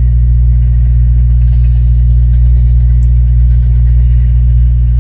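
Steady low rumble of a car driving at speed, heard from inside the cabin.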